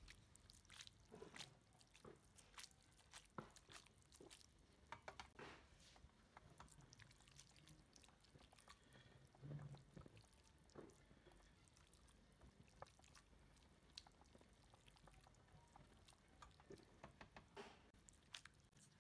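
Faint wet squelching and scattered light clicks from spaghetti tossed with metal tongs in an aluminium frying pan, the cheese and pasta water being worked into a creamy sauce (mantecare).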